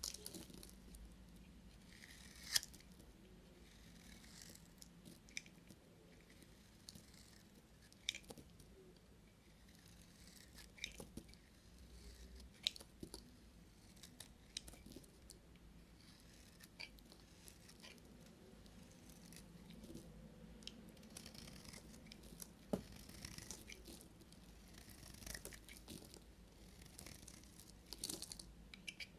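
Knife cutting through bars of soap: a series of short, crisp cuts a few seconds apart, quiet in between.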